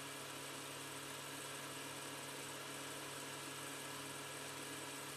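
Steady low hum with an even hiss over it, unchanging throughout: background noise with no speech or other events.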